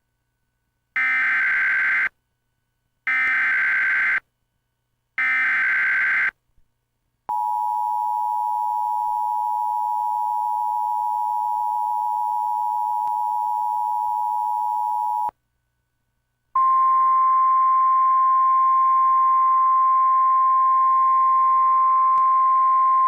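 Emergency Alert System alert for a severe thunderstorm warning. It opens with three one-second screeches of SAME digital header code, about a second apart. Then comes the steady two-tone EAS attention signal for about eight seconds, and after a short pause a single steady alert tone starts and keeps going.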